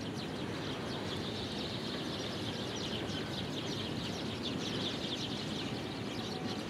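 Outdoor ambience: a steady background noise with a dense, continuous chatter of short high bird chirps.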